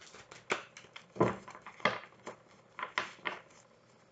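A deck of tarot cards being shuffled by hand: a string of short, irregular slaps and flicks of the cards.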